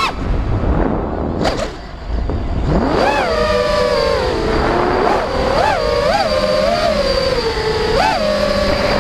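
Brushless motors and propellers of a 5-inch FPV quadcopter, heard from the onboard camera: the whine drops as the throttle is cut at the start, with wind rushing on the microphone for about two seconds. About three seconds in it rises again, then wavers up and down with short throttle blips and holds steady near the end.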